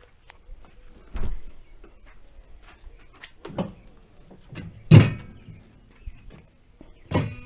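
A few separate dull knocks and thumps, the loudest about five seconds in with a low boom and a short ring after it, among faint handling noise.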